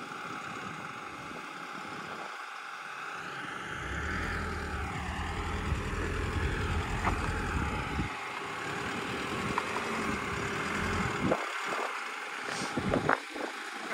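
Hyundai Terracan's 2.9-litre four-cylinder turbodiesel running at low speed during a slow off-road manoeuvre. Its note grows heavier and louder from about four seconds in, eases back around eight seconds, and a few short knocks come near the end.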